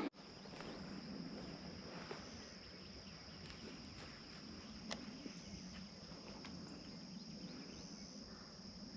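Faint outdoor insect chorus: a steady, high-pitched buzz, with one sharp click about five seconds in.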